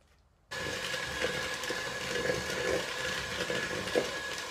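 Electric hand mixer switched on about half a second in and running steadily with a constant whine, its beaters churning butter into chocolate cookie-dough mix in a plastic bowl, with a couple of louder knocks.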